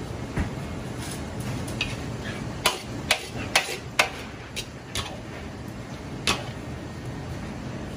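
A metal ladle or spatula knocking sharply against a steel wok about nine times while spaghetti is worked in the pan. The knocks are bunched together around the middle, over a steady low kitchen background noise.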